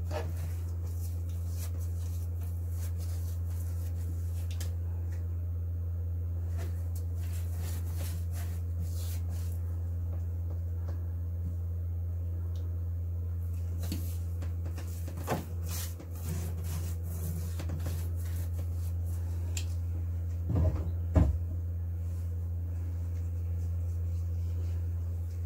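Hand-work noises of fibreglass tabbing being laid in with epoxy: scattered light clicks and knocks of the brush, cup and cloth over a steady low hum. A few louder knocks come in the second half, the loudest two close together about twenty seconds in.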